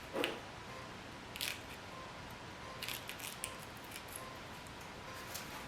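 A handful of short, crisp clicks and crackles, spaced a second or more apart, from hands working the material that seals off the rim's bearing hub against wire-wheel debris.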